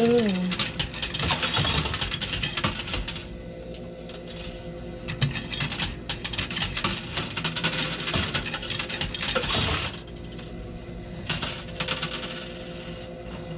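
Coins clattering and clinking in a coin pusher arcade machine as they are fed in and shoved along the shelves: three long stretches of rapid metallic clinking with quieter gaps between them.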